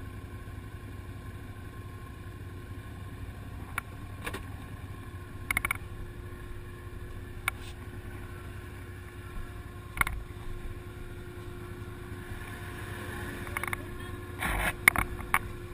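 ATV engine idling steadily, with scattered knocks and clicks from handling; a cluster of louder knocks comes near the end.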